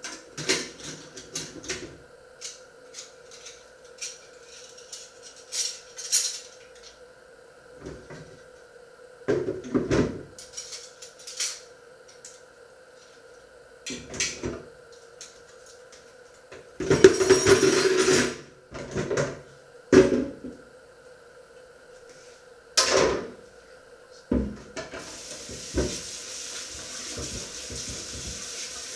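Kitchen dishes and utensils clattering and knocking in scattered strokes, with a longer rattle about two-thirds of the way through. Near the end a tap starts running in a steady hiss.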